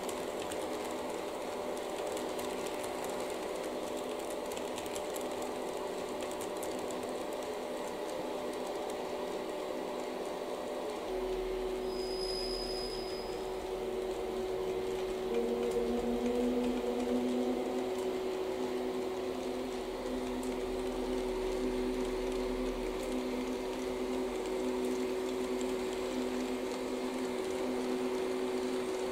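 HO-gauge model train running on the layout: a steady motor whine and hum with several held tones. A further steady tone joins about a third of the way in, with a brief high beep just after.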